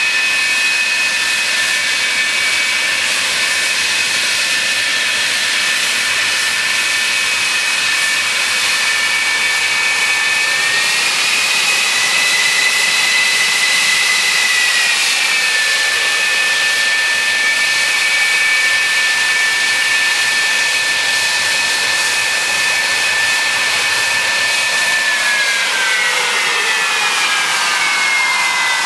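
McDonnell Douglas F-4 Phantom II's twin J79 turbojets running on the ground: a loud steady rush with a high whine. The whine rises briefly about a third of the way in and settles back, then falls steadily over the last few seconds as the engines spool down.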